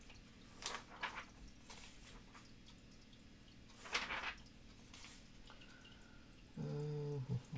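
Pages of a thick glossy comics catalog being turned by hand: a few soft rustles and swishes, the loudest about four seconds in. Near the end comes a short low hum.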